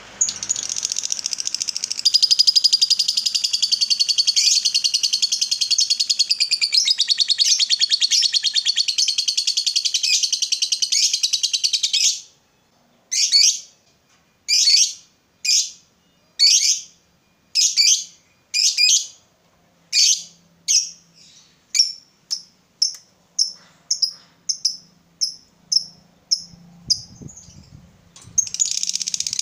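Lovebird's long chattering song, the 'ngekek panjang' prized by lovebird keepers: a rapid, unbroken high chatter for about twelve seconds. It breaks into separate sharp calls, about one a second at first and quickening to several a second, before the unbroken chatter starts again near the end.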